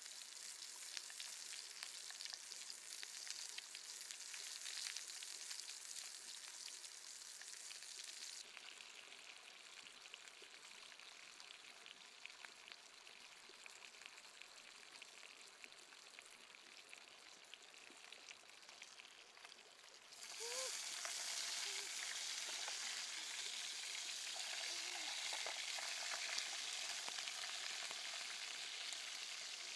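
Skin-on chicken pieces sizzling in hot oil in a pan: a steady crackling hiss with fine pops. It drops quieter about a third of the way in and turns louder again about two-thirds in.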